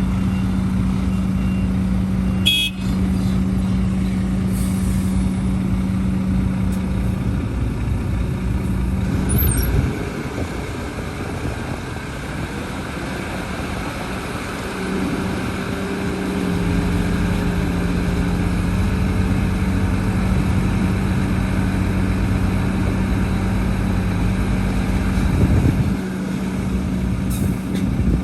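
Heavy diesel earthmoving machinery running steadily, an excavator and dump trucks at work. The engine note shifts about ten seconds in and again about fifteen seconds in, and there is one short sharp knock about two and a half seconds in.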